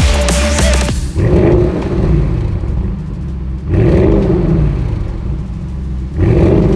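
Audi RS7's twin-turbo 4.0 V8 through an Akrapovič titanium exhaust, revved three times while stationary. Each blip rises and falls over about a second and a half, starting about a second in.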